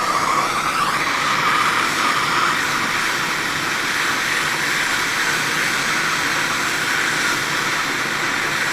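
Gas blowtorch flame burning with a steady hiss, heating a rusted-on nut on a starter motor to free it. It rises slightly in pitch about a second in, then holds even.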